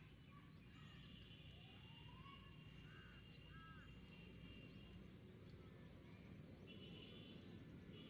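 Faint outdoor ambience: a steady low rumble with distant birds calling, including a couple of short chirps about three seconds in.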